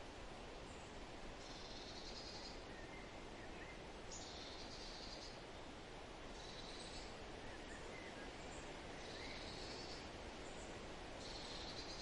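Steady forest wind with a bird repeating a short, high-pitched phrase about every two and a half seconds, five times, and a few faint lower chirps between.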